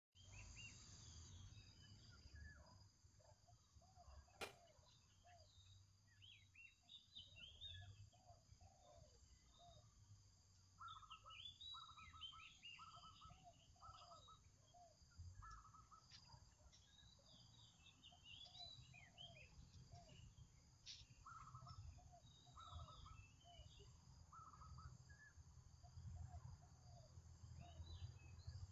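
Faint birdsong: several birds chirping and trilling continuously over a low hum, with a few sharp clicks, the clearest about four seconds in.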